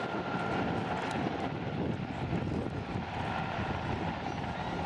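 Sikorsky S-92 helicopter hovering, its rotors and twin turboshaft engines running steadily, with a faint high whine that fades out early.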